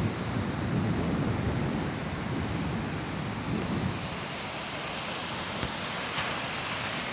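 Ocean surf and wind, a steady rushing noise, with wind buffeting the microphone in gusts over the first few seconds.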